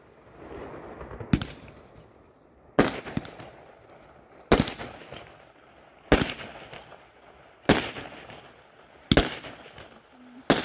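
Aerial fireworks bursting overhead: about seven sharp bangs at even intervals of roughly a second and a half, each followed by a short trailing crackle and echo.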